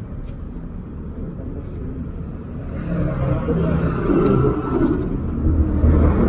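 Road traffic passing: a steady low rumble of engines and tyres that grows louder in the second half as motorcycles and then a bus go by.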